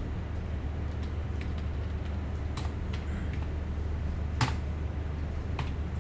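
Scattered keystrokes on a computer keyboard: a handful of separate key clicks, the loudest about four and a half seconds in, over a steady low hum.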